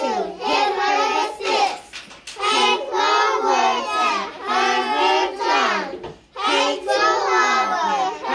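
A group of young children's voices together in unison, in phrases broken by short pauses about two and six seconds in.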